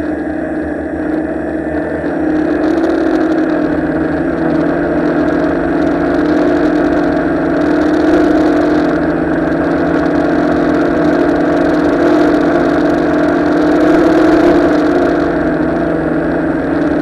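Tarot Ironman 650 multirotor's electric motors and propellers, heard close up from its onboard camera: a steady, loud drone whose pitch shifts a little as the throttle changes in flight. A hiss swells over it a few times.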